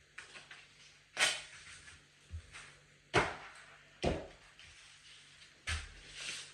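Drywall taping knife working joint compound and tape: about five short scraping strokes and knocks, spaced unevenly.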